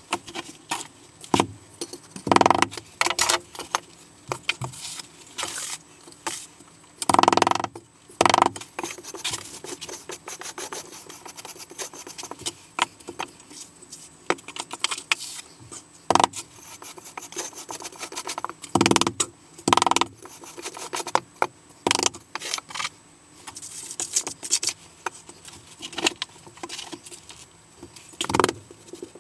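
Hand float and wooden screed stick scraping and packing gritty sand-and-cement deck mud around a shower drain: irregular rasping strokes with a few louder, sharper ones.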